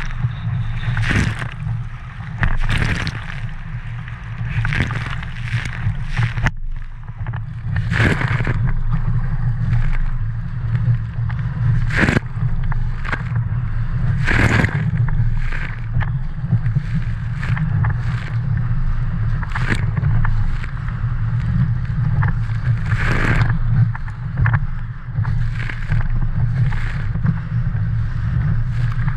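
Water splashing and slapping against the hull of a Tiwal inflatable sailing dinghy under way, a splash every second or two, over a steady rumble of wind on the microphone.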